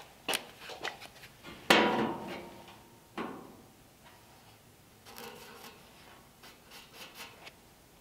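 Handling noise on a sheet-metal door structure: a few light clicks, then two sharp metallic knocks about a second and a half apart that ring briefly. Faint scratching and rubbing follows.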